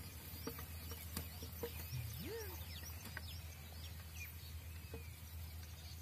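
Small birds chirping faintly: a string of short, quick, high whistled chirps and sweeps, several a second, over a steady low hum, with a few faint clicks.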